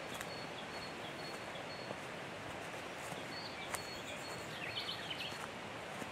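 Forest ambience: a steady hiss of background noise with scattered short bird chirps and calls, and a few faint clicks.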